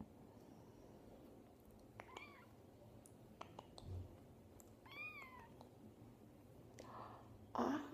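Very young kitten mewing faintly: two short, high mews that rise and fall, about three seconds apart, with a few soft clicks between them. A brief, louder noise comes near the end.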